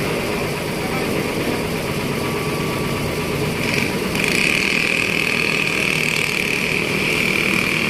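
Heavy diesel container truck's engine running under load as it climbs a steep hairpin bend, with a steady high-pitched whine joining about four seconds in.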